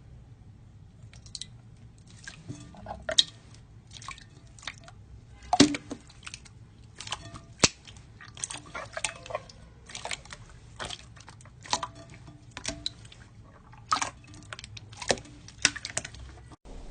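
Hands squeezing and poking jiggly water slime: a run of irregular wet clicks and pops, with a few sharper snaps standing out.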